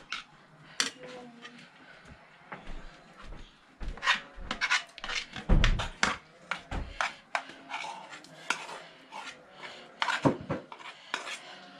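Cooking utensils clinking, knocking and scraping against a pot and dishes in short, irregular strokes, with a heavier thump about five and a half seconds in.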